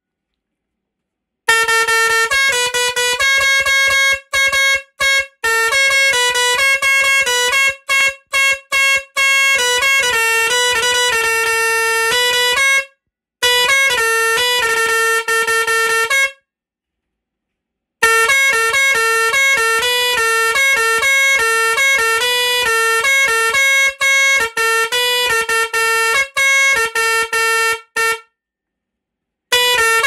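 Bosco Tri-Bigul three-trumpet electric musical air horn playing programmed tunes note by note, in short clipped phrases stepping between a few pitches. It stops briefly three times as the controller moves on to the next song.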